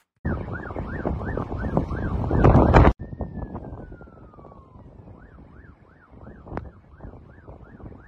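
A siren sounding in a fast rising-and-falling pattern, about three cycles a second. It is loud for the first three seconds and cuts off abruptly, then comes back fainter after a single falling tone, over a low noise of wind and water.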